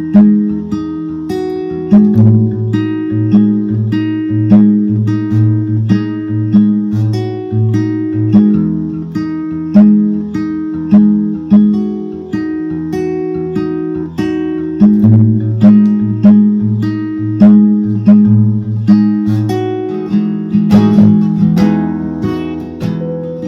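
Acoustic guitar music with plucked and strummed chords, each note struck sharply and left to fade, over a repeating low bass line.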